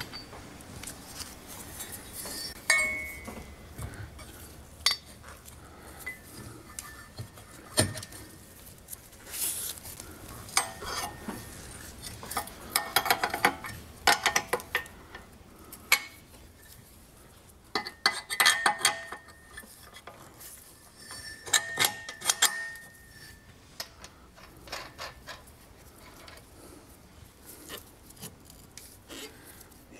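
Metal suspension parts and tools clinking and clanking as a billet aluminium suspension arm is handled and lined up under the car, in irregular bursts with quieter gaps; some clinks ring briefly.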